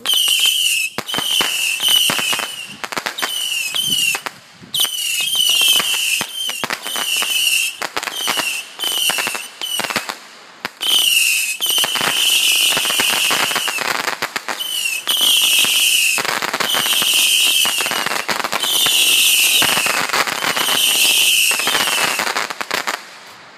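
Multi-shot firework battery firing a rapid string of whistling shots, each a short high whistle over sharp crackling pops. It pauses briefly twice, and the later whistles are longer. The volley stops shortly before the end.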